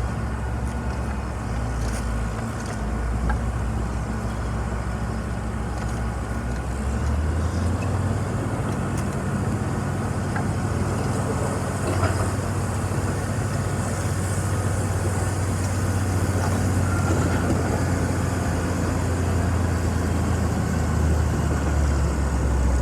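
Yanmar SV17 mini excavator's three-cylinder diesel engine running steadily. Its note steps up about a third of the way in and shifts again near the end, with a single clank about halfway.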